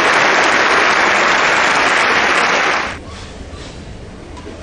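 Crowd applauding. The applause cuts off suddenly about three seconds in, leaving a low hall background.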